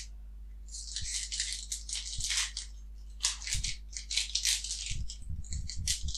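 Foil Pokémon card booster-pack wrapper crinkling irregularly as it is opened by hand, with a few soft knocks near the end.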